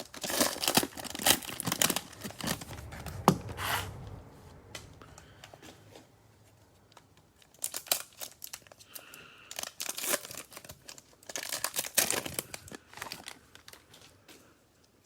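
Cellophane wrapper of a trading card cello pack being torn open and crinkled by hand. The crackling comes in bursts: a long one over the first four seconds, then shorter ones about halfway through and again a few seconds before the end.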